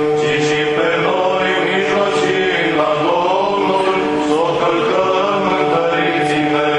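Romanian Orthodox church chant from a Paraclis service: a melodic line sung over a steady held drone note.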